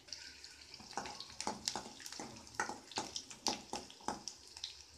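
Peeled garlic cloves sautéing in hot oil in an iron kadai on low heat. A steady sizzle runs under irregular sharp crackles, about eight of them over the few seconds.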